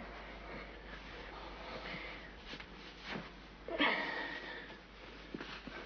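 Rustling of a knitted pullover being pulled on over a man's head, with short breathy sniffs and huffs from him; the loudest huff comes about four seconds in.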